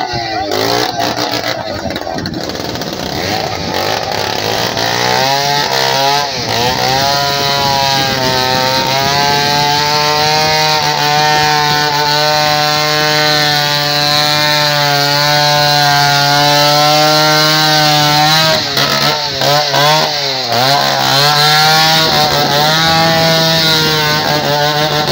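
A small engine running at high, steady revs, its pitch sagging and picking up again a few times, over a steady rushing noise.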